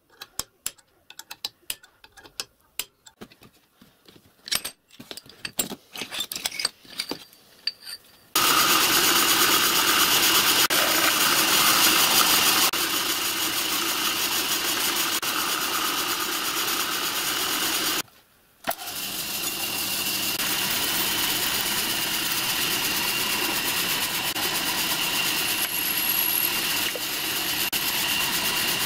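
Sharp, irregular taps of a hammer striking a centre punch on steel, marking out. Then a milling/drilling machine runs steadily while cutting into an aluminium block, stopping for a moment about two-thirds in.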